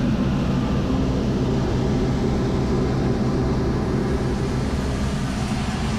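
Steady rumble and low engine hum of a diesel-hauled passenger train, heard from a coach's vestibule by the door.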